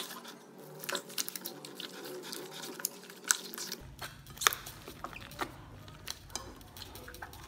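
Slime being squeezed and kneaded by hand in a glass bowl: wet, sticky squishing with many small irregular clicks and pops.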